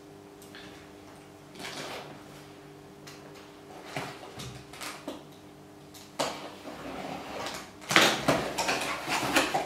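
Small cardboard box being opened by hand: packing tape picked at and pulled away, then the flaps pushed open, with scattered scraping and rustling that gets louder and busier about eight seconds in. A faint steady hum sits underneath.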